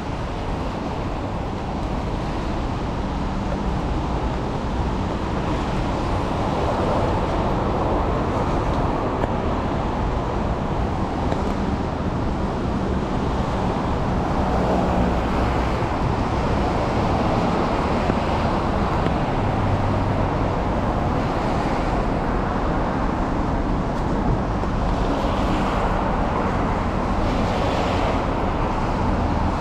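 Steady road traffic noise from cars driving on a rain-wet street, swelling and fading a little as vehicles pass.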